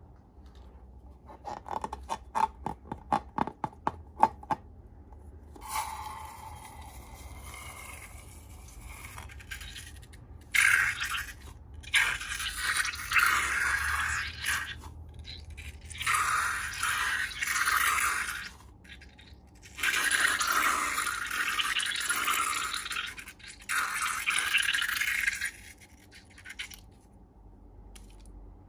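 Hands working slime and balloons: a quick run of clicks, a brief squeaky sliding sound, then long stretches of scraping, rustling noise in bursts with short pauses between.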